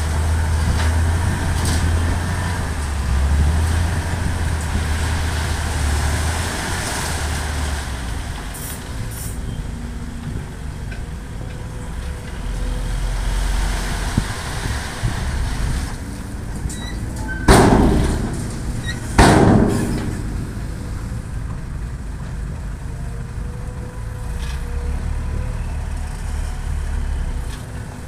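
Hino 500 dump truck's diesel engine running steadily with the bed raised as it tips its load. Past the middle come two loud sharp bursts about two seconds apart, each dying away within about half a second.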